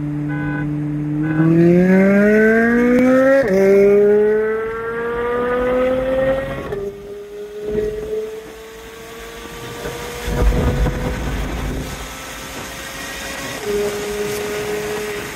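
A twin-turbocharged C8 Corvette's 6.2 L V8 heard from inside the cabin, running steadily and then going to full throttle about a second in. The engine note rises, drops at an upshift a couple of seconds later, rises again, and drops at a second shift about three seconds after that. It then climbs slowly, with a third shift near the end and a brief low rumble midway.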